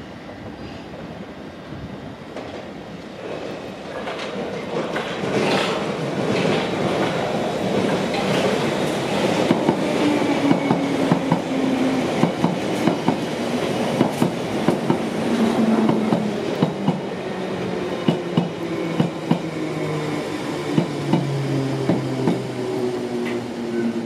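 London Underground 1972 Stock Bakerloo line train approaching and running past over pointwork: wheels knocking sharply and repeatedly over the rail joints and crossings, over a low drone that slowly falls in pitch as the train slows. It grows louder from about four seconds in and drops away right at the end as the last car goes by.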